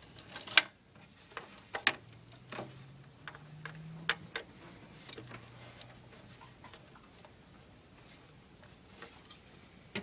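Scattered sharp clicks and light taps of wiring and plastic cable clips being handled inside a desktop computer case. The sharpest click comes about half a second in, with fainter ones every second or so.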